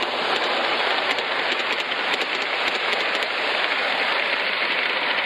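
A steady hissing noise with faint scattered ticks, even and unchanging throughout.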